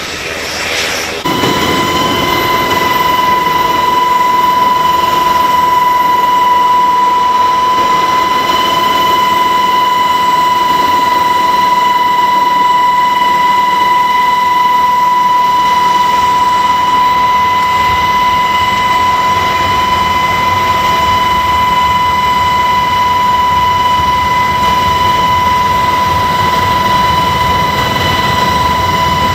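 Aircraft engine noise heard from inside the cabin in flight: a steady, high-pitched turbine whine over a constant rushing noise. It starts suddenly about a second in and stays level.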